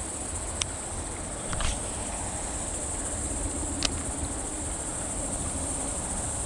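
Steady high-pitched chorus of summer insects, such as crickets, ringing continuously, with a few sharp clicks, one of them doubled, in the first four seconds.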